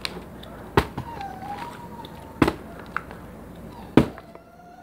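Plastic water bottle thumping down on the floor: four sharp knocks roughly a second apart, with a lighter tap between the third and fourth.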